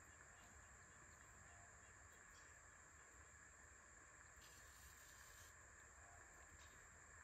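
Near silence: faint outdoor background with a steady, high-pitched insect drone, a few faint ticks, and a brief soft hiss about four and a half seconds in.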